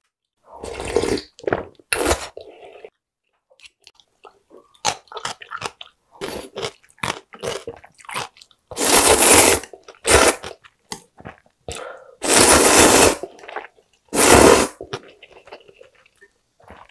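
Close-miked eating of instant seafood ramyeon: wet chewing and mouth sounds, broken by several long, loud slurps of noodles and broth in the second half.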